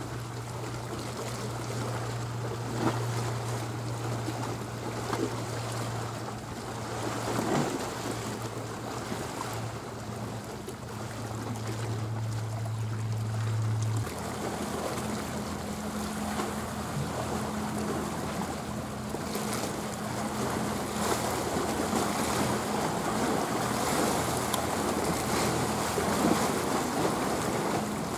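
Steady low drone of a passing cargo ship's diesel engine over wind and washing waves; the drone changes abruptly to a higher hum about halfway through.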